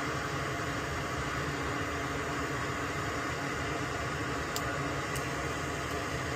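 A small electric fan or blower running steadily with an even whooshing noise, with two faint ticks a little past the middle.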